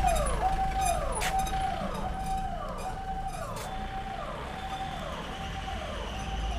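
Ambulance siren wailing in a repeating cycle, a short steady tone then a falling sweep, about three cycles every two seconds, over a low rumble. It fades a little over the first few seconds as the ambulance pulls away.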